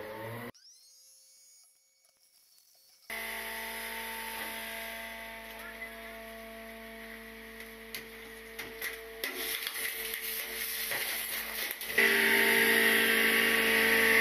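Near silence, then about three seconds in the hydraulic packer of a side-loading garbage truck starts running: a steady whine with several held tones that gets much louder about twelve seconds in as the packer blade works.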